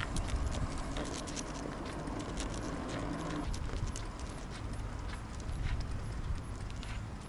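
Light, irregular clicks and rattles from a bicycle's wicker basket and wire cage jolting along while riding, over a steady low rumble of the ride.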